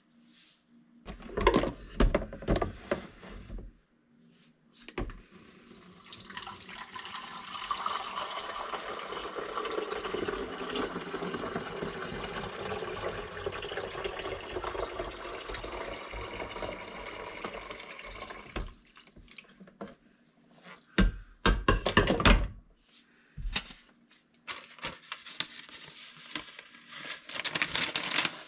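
Welding arc from a Vulcan OmniPro 220 welder, crackling and hissing steadily for about 13 seconds, with loud clanks of metal being handled before and after the bead.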